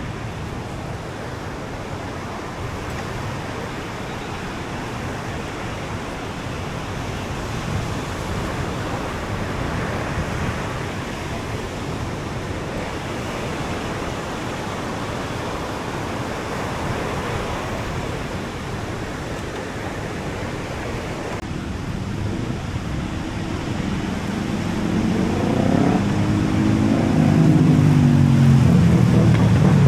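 Steady wash of ocean surf and wind. In the last several seconds an engine approaches and passes close by, growing loud, its pitch rising and then falling.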